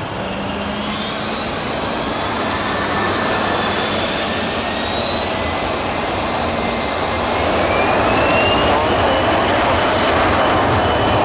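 Embraer Legacy business jet's twin rear-mounted turbofans at takeoff power on the takeoff roll. The roar grows steadily louder and the whine rises in pitch as the jet accelerates down the runway.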